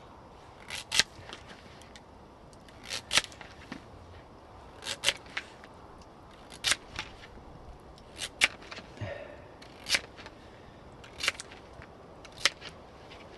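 Knife chopping potato into chips on a board: a sharp knock of the blade, mostly two in quick succession, about every one and a half to two seconds.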